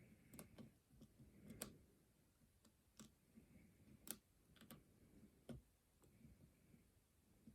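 Faint, scattered clicks of a lock pick working the pins inside a Lockwood 215 padlock's keyway during single-pin picking, about half a dozen sharper ticks over a soft rustle of handling.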